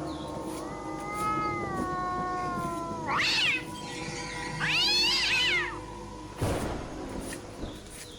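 A cat meowing: one long call falling in pitch, then two loud arching meows, the second one longer. A short thump or rustle follows near the end.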